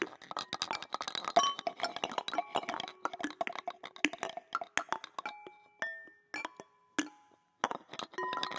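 Handheld found-object instruments (lydes) played as improvised percussion, layered from several separately recorded takes: dense taps, clicks and clinks, many with short ringing pitched tones. The taps thin out past the middle, with a brief pause about seven seconds in before the clatter resumes.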